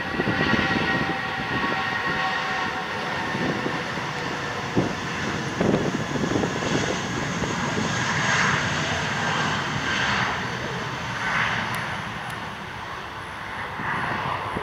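Twin-engine narrowbody jetliner at takeoff thrust on its takeoff roll: a steady jet roar with a high whine in the first few seconds, easing slightly near the end as the jet lifts off.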